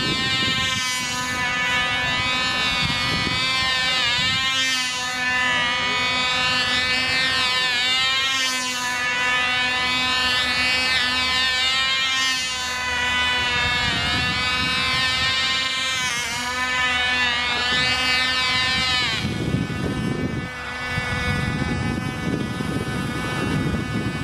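Cox Stuka control-line model's tiny .049 glow engine running at a high whine, its pitch rising and falling about every four seconds as the plane circles. About 19 seconds in the engine cuts out and only a low rough noise is left as the model glides in to land.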